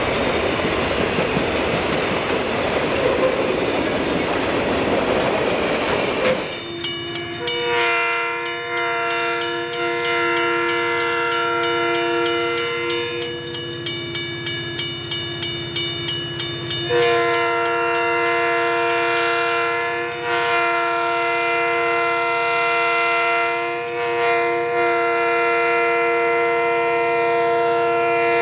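A loaded coal train rolls past with a steady rumble of wheels on rail. After a cut, about six and a half seconds in, Burlington Northern SD40-2 7136 sounds its multi-note air horn for a grade crossing: one long chord, a few seconds where it thins to fewer notes, then a second long chord held to the end, while the crossing bell rings in quick, even strokes.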